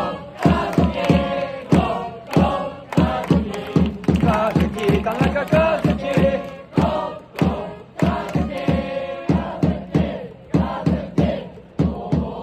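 A crowd of baseball fans singing a player's cheering song in unison, with a steady sharp beat about three times a second under the voices.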